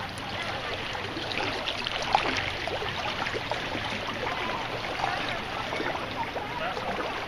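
Creek water flowing and trickling around a canoe, with one sharp knock about two seconds in.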